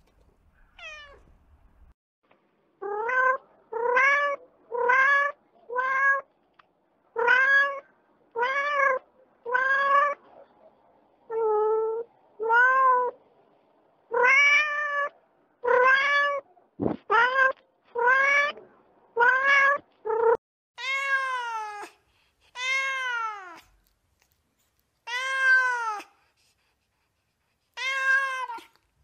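A cat meowing over and over, about twenty separate meows with short gaps between them, starting a few seconds in. The last few meows are longer and fall in pitch at the end.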